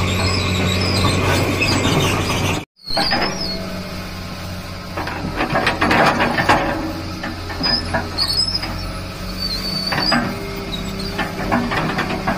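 Diesel engine of a Tata Hitachi tracked excavator running with a steady hum, with short high squeals and irregular scraping as the bucket digs into sand and gravel. The sound drops out for an instant about three seconds in.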